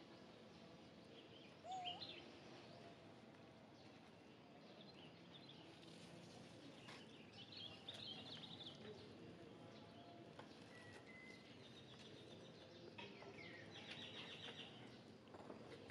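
Near silence: faint background ambience with a few short bird chirps, the loudest about two seconds in, and quick chirping again around eight and fourteen seconds in.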